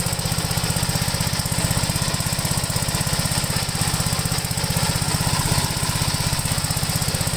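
Postal Gravely walk-behind tractor's engine running steadily on its new exhaust, with an even, fast pulsing beat.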